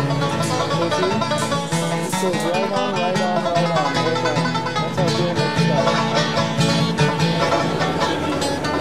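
Background music in a bluegrass style, with plucked strings.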